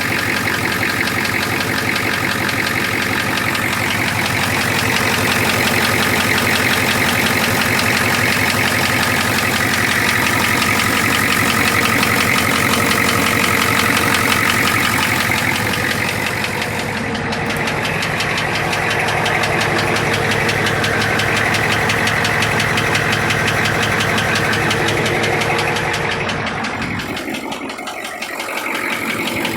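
Navistar 6.9 L IDI V8 diesel engine running at idle with a fast, steady, rhythmic knock.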